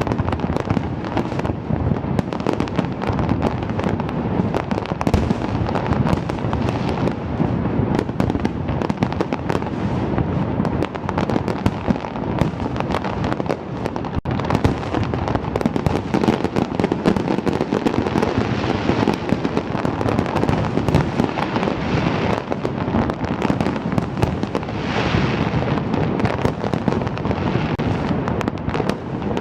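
Fireworks display: a dense, unbroken barrage of bangs and crackling shell bursts, with a brief drop about halfway through.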